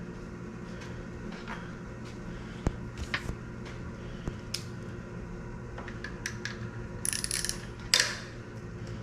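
Metal engine parts and tools being handled during a V8 teardown: scattered light clicks and clinks, a quick rattle about seven seconds in and a sharp metal clank about a second later, over a steady low hum.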